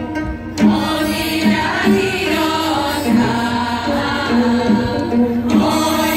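A mixed choir of men and women singing a song together, accompanied by an ensemble of Korean zithers (gayageum). The voices come in about half a second in.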